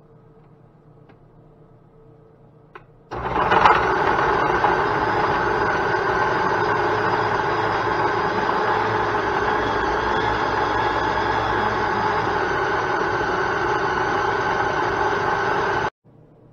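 Oster 12-speed blender with a food-processor bowl running, grinding chunks of raw fish into mince. A couple of light clicks come first, then the motor starts suddenly about three seconds in, runs steadily for about thirteen seconds and cuts off abruptly near the end.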